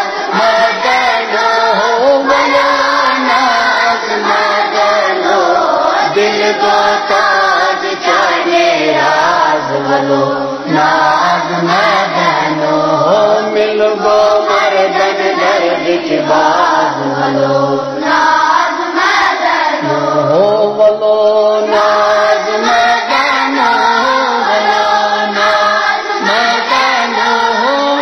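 A chorus of children singing a Kashmiri naat together in unison, a continuous devotional chant.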